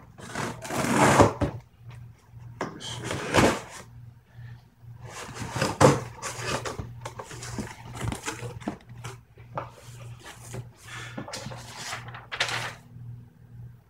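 A cardboard shipping box being cut open and its flaps pulled back: repeated bursts of scraping, tearing and rustling cardboard, loudest about a second in and again near six seconds in.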